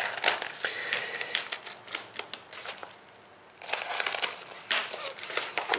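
A small plastic shipping packet being opened by hand: crinkling, rustling packaging and small clicks, with a short pause about halfway through.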